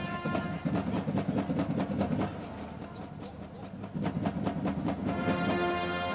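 Marching band playing: a run of quick percussion hits that dies down a little after two seconds in, more hits around four seconds, then the brass coming in with long held chords near the end.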